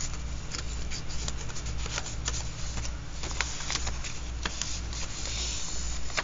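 Paper and card rustling, with many small taps and scrapes, as the layered pages of a handmade mixed-media journal are handled and turned, over a steady low hum.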